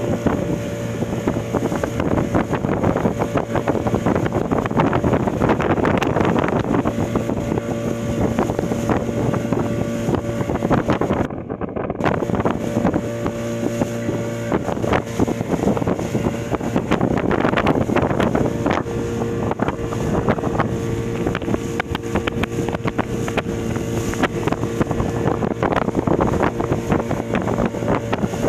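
Small outboard motor running at a steady speed, pushing an open dinghy through the water, with wind buffeting the microphone and the wash of the wake.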